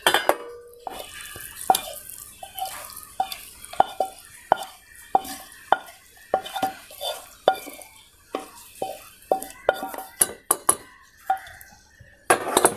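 A metal spoon scraping and knocking against a non-stick pan and a steel bowl as thick, soupy noodles are scraped out of the pan into the bowl. The clinks come about one and a half a second, each with a short metallic ring, over a soft scraping hiss, and there is a louder clatter near the end.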